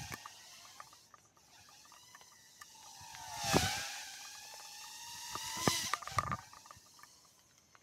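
Baby Ape micro FPV quadcopter's motors whining, the pitch rising and falling with throttle as it flies past. It is loudest about halfway through, where the whine sweeps down in pitch as it passes close, and swells again near the end.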